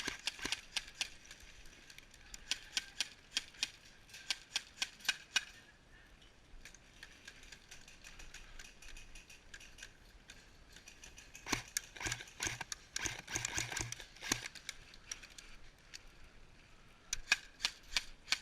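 Airsoft guns firing: groups of rapid, sharp shots at the start, again in the middle, and once more near the end.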